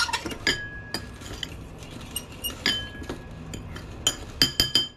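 A fork clinking against a bowl while stirring flour seasoning. There are scattered single taps, each ringing briefly, then a quick run of several clinks near the end.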